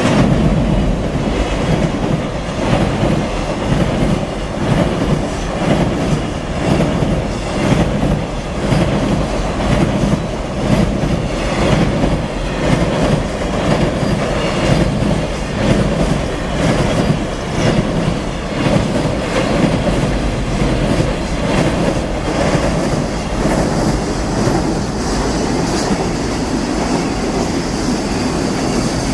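Freight train running by, its wagons' wheels clacking in a steady repeating rhythm over rail joints above a continuous loud rumble.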